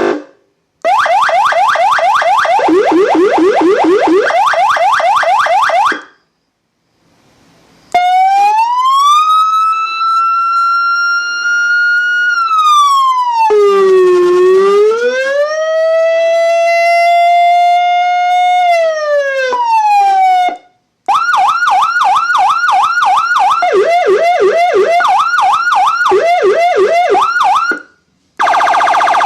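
SA620 200-watt electronic siren sounding loud through its speaker and stepping through tones: a fast warbling yelp, then after a short pause a slow rising and falling wail, then a rapid run of short chirping pulses that alternate between two pitches.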